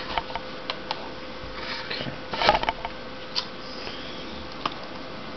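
Small plastic clicks and taps of a laptop keyboard and its ribbon cable being handled while its connectors are fitted back onto the motherboard, with a louder cluster of clicks about halfway through.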